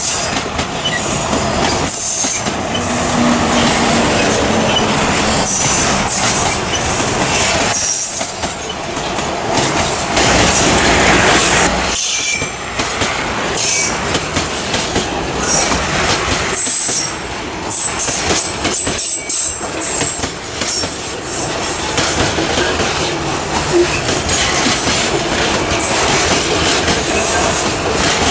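A long freight train of boxcars rolling past close by: steel wheels clattering over the rail joints, with short high wheel squeals now and then.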